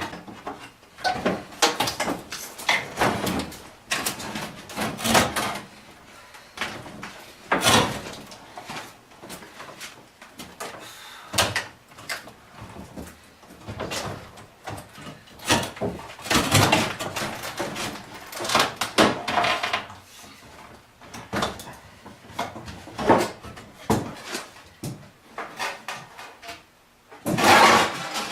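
Irregular knocks, clatters and scrapes of old wooden beadboard panels being handled, pried and pulled apart as an antique corner cabinet is dismantled, with the loudest clatter near the end.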